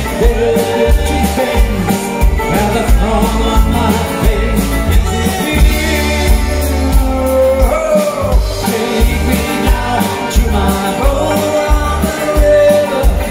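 Live folk band music with acoustic guitars and accordion over a steady beat, with singing.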